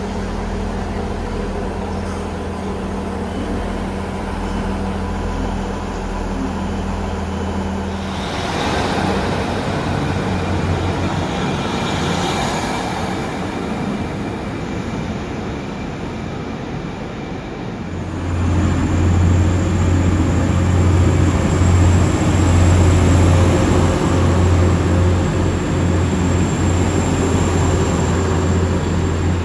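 A train running at a station: a steady low hum at first, a noisier hissing stretch in the middle, then a louder deep drone with a high thin whine from about two-thirds of the way in.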